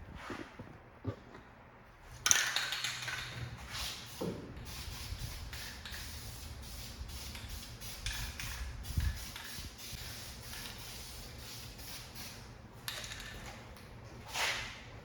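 Paint being sprayed in short passes: a hiss that starts about two seconds in and rises in louder surges now and then.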